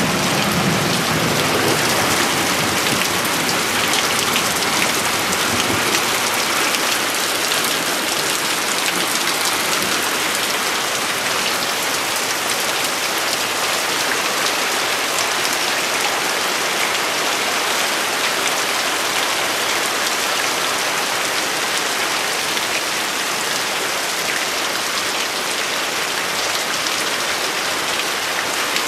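Heavy rain in a thunderstorm: a loud, steady hiss of downpour.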